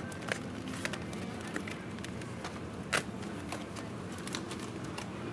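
Supermarket background noise: a steady hubbub with scattered light clicks and knocks, and one sharper knock about three seconds in.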